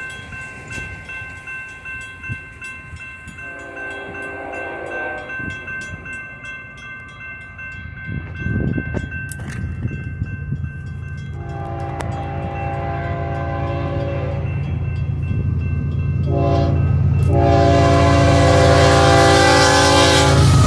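Railroad crossing bell ringing steadily while an approaching BNSF freight locomotive sounds its air horn in the grade-crossing pattern: long, long, short, long. The rumble of the locomotive and its wheels grows louder through the second half as the train reaches the crossing.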